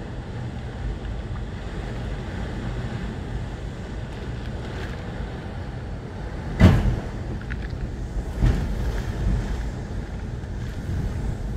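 Hurricane wind and rain blowing with a steady low rumble. A sudden loud gust comes about two-thirds of the way through, and a smaller one about two seconds later.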